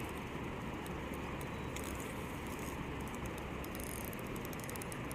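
Steady rushing of river water flowing through shallow riffles.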